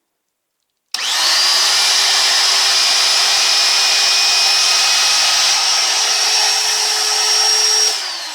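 DeWalt DW660 cut-out tool's motor switched on about a second in, spinning up almost at once to a loud, steady high-pitched whine. It runs for about seven seconds, then is switched off near the end and its pitch falls as it spins down.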